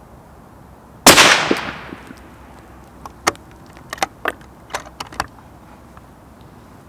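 A single shot from a Sako S20 rifle in .308 about a second in, its report dying away over roughly a second. Then the bolt is worked by hand, a quick run of sharp metallic clicks as it is lifted, drawn back to eject the spent case, pushed forward and locked down.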